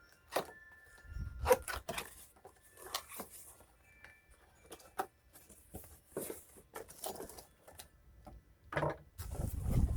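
A boxed work light being handled and unpacked: scattered clicks, taps and rustles of cardboard and plastic packaging. Gusts of wind buffet the microphone near the end.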